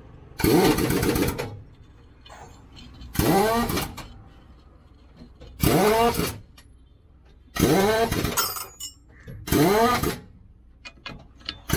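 A power tool run in five short bursts about two seconds apart, each a whine that climbs in pitch as the tool spins up and then stops.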